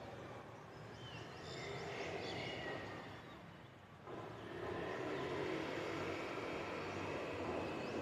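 Birds giving a few short chirps and whistles over a steady hum of city traffic. The traffic noise swells louder about halfway through and stays up.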